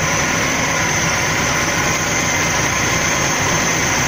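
1975 VW Kombi bus's air-cooled flat-four engine idling steadily.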